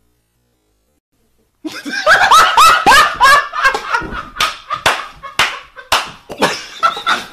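Silence, then about one and a half seconds in, loud laughter breaks out, mixed with many sharp slaps.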